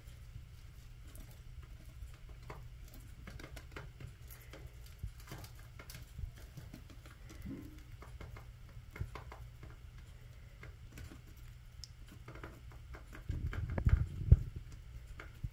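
Budgerigar eating lettuce leaves: irregular small clicks and pecks from its beak as it bites and tugs at the leaves. A louder burst of leaf rustling and a sharp tap come about thirteen to fourteen seconds in.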